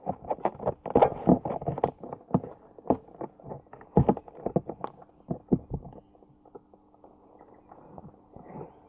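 Irregular knocks and scrapes of a knife cutting into a fish on a hard surface, stopping about six seconds in; a faint low hum remains after.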